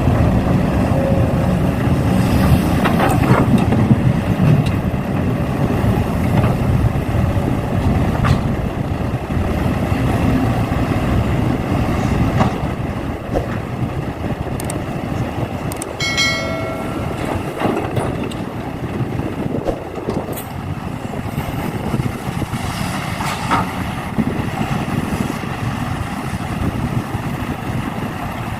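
Radio-controlled model excavator and dump truck running steadily while loading soil, with scattered knocks and clatter. A short beep sounds about sixteen seconds in.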